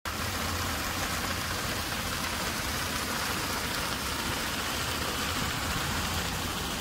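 Water pouring from a cooling tower's outlets and splashing into the pool below, a steady rain-like rush, with a steady low hum underneath.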